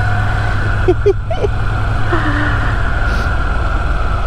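Moto Guzzi V7 Stone's 853 cc air-cooled transverse V-twin running steadily under way, heard with road and wind noise.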